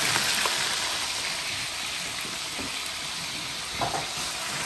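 Pieces of raw goat meat sizzling as they fry in hot oil in a large aluminium pot, a steady hiss. A short knock comes near the end.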